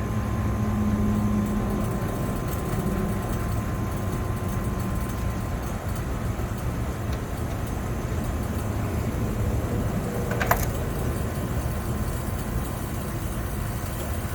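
Air conditioner condenser unit running steadily with a low hum, its compressor pumping the refrigerant back into the condenser during a pump-down, with the liquid line valve closed and the suction pressure falling toward zero. A single sharp click about ten seconds in.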